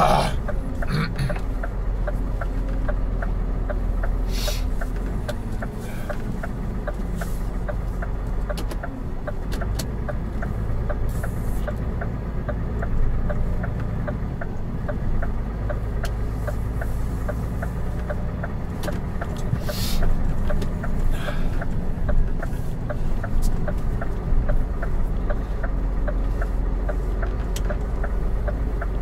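Truck engine idling with a steady low hum, a light regular ticking about two to three times a second on top, and a few sharper clicks.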